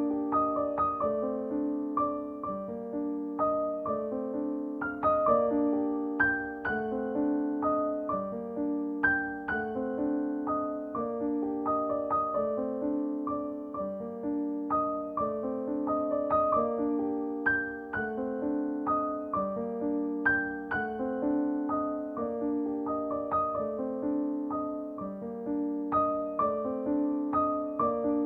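Background piano music: a gentle repeating melody over sustained low notes.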